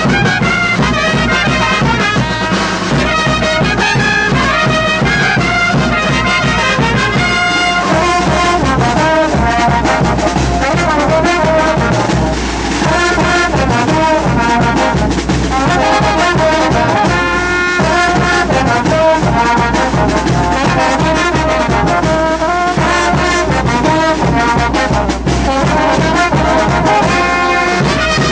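Brass band playing wititi, the traditional dance music of the Colca Valley: brass instruments carrying the melody over a steady beat.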